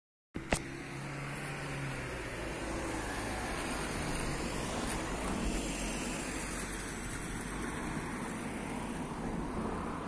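Steady outdoor background noise, an even rumble and hiss with no distinct events, after a sharp click about half a second in.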